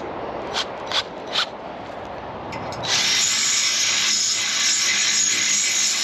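A few sharp taps over scraping, then about three seconds in a power drill starts up and runs steadily for about three seconds before stopping, boring a hole for the rack mounts in the trailer.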